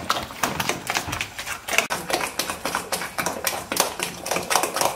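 Thick, wet walnut, onion and egg batter being mixed vigorously in an enamel bowl: quick, irregular squelching slaps, several a second.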